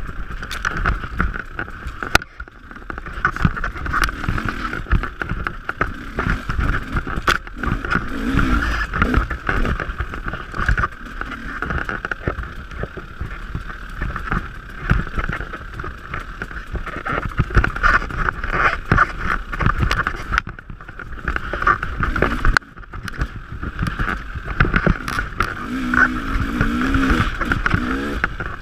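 Dirt bike engine running under a constantly changing throttle on rough singletrack, the note rising and falling, with knocks and rattles from the bike bouncing over the trail.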